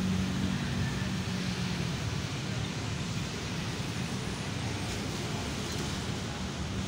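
Steady street and traffic noise with a low hum.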